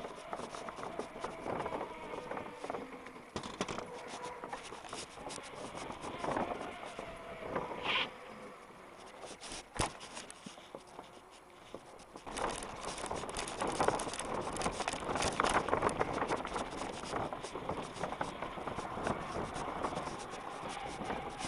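Mountain bike ridden fast over paving, with tyre noise and a constant rattling and clattering of the bike and its handlebar map board. The rattling grows louder from about halfway through.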